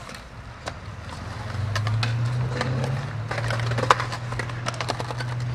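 Skateboards on concrete: scattered sharp clacks and knocks of boards hitting the ground. About a second and a half in, a steady low rumble of wheels rolling over concrete starts and carries on.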